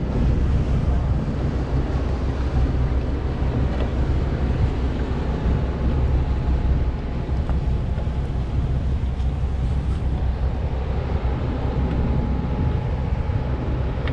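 Strong wind on the microphone: a steady low rumble with an even hiss over it.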